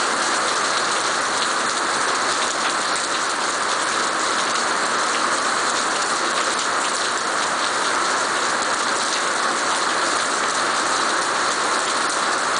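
Heavy rain pouring steadily onto wet paving slabs, puddles and garden shrubs: an even, dense hiss with no let-up.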